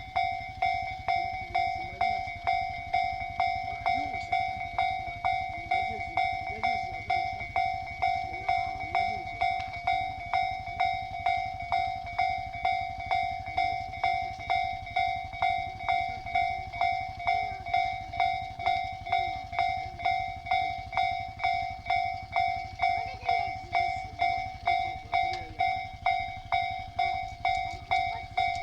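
Japanese railway level-crossing warning bell ringing, a steady electronic clang repeating just under twice a second, the signal that a train is approaching. A low rumble runs underneath.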